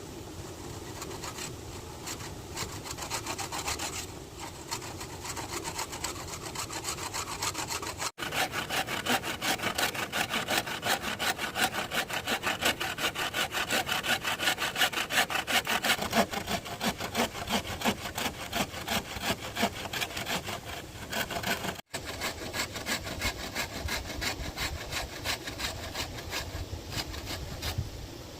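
Hand saw cutting through bamboo in steady, rhythmic back-and-forth strokes, broken twice by a momentary gap.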